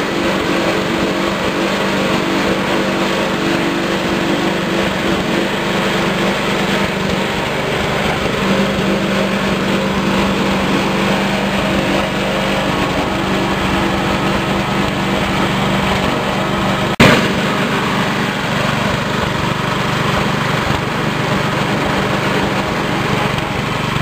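Foam and fabric shredding machine running steadily while shredding foam, a constant machine hum. A single sharp click about 17 seconds in.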